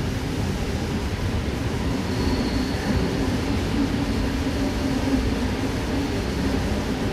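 Steady running rumble inside the saloon of a Sydney K-set double-deck electric train, with a faint steady hum coming in about two seconds in.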